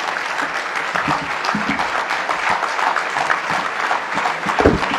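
A large audience applauding steadily, with a single low thump near the end.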